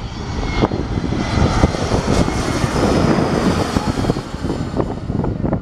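Embraer E-Jet regional airliner passing low overhead on landing approach, gear down: the rushing noise of its twin turbofan engines swells to its loudest about two to four seconds in, then eases slightly.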